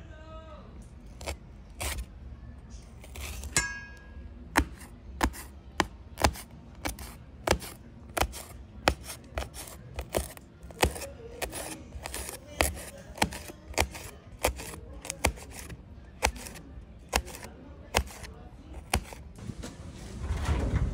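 Kitchen knife chopping a green chili pepper on a plate: sharp, regular taps of the blade on the plate, about one and a half a second. Near the end they give way to a louder rustling swell as diced onion is tipped into a plastic bowl.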